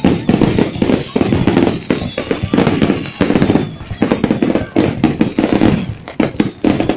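Fireworks going off in a dense, unbroken run of bangs and crackles, many a second.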